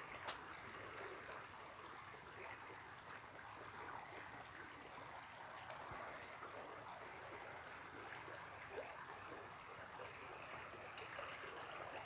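Shallow creek water flowing and trickling over a sandy bed, faint and steady.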